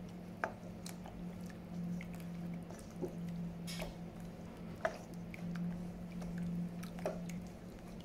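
A wooden spatula stirring a thick curry, egg and seafood mixture in a stainless steel bowl: wet squelching broken by scattered sharp clicks. A steady low hum runs underneath.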